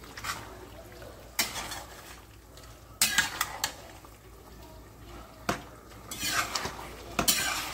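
A spoon or ladle stirring noodles in a pot of soupy pork gravy, knocking and scraping against the pot about five times.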